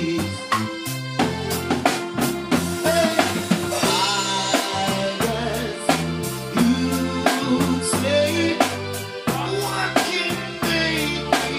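Live reggae band playing: a drum kit keeps a steady beat with snare and bass drum under electric bass and keyboard, while a man sings into a microphone.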